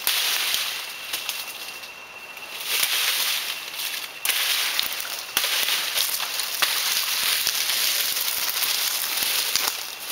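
Machete chopping through jungle vegetation: irregular sharp cracks of the blade cutting stems and branches, over a dense high hiss.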